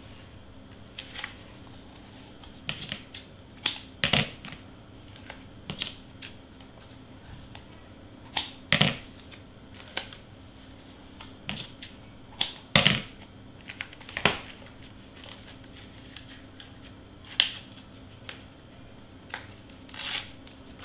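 Cardstock pieces being handled and pressed into place on a work surface: irregular crisp taps, clicks and paper rustles, with a faint steady hum underneath.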